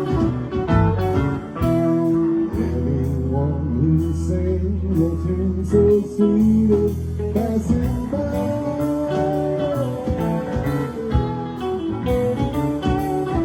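Live band playing an instrumental jam: guitar leading over bass and drums, with a long held low bass note through the middle.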